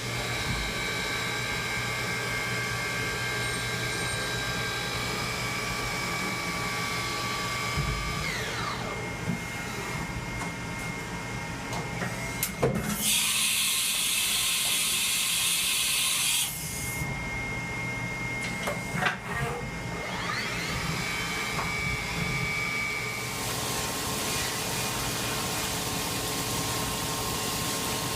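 A 1994 Haas VF2 CNC vertical mill running, with a steady electric whine from its motors. The whine falls in pitch about eight seconds in and rises again later, as speeds change. About thirteen seconds in, a loud hiss lasts around three seconds, with a few clicks around it.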